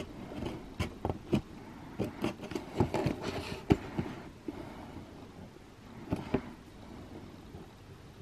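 Scissors cutting and scraping at sellotape on a small cardboard box, with taps and clicks as the box is handled: a scatter of short clicks, busier in the first half and sparser after about four seconds.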